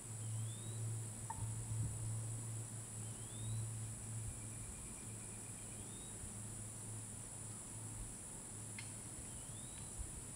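Steady high-pitched drone of an evening insect chorus, with a short rising whistle repeating four times, a few seconds apart.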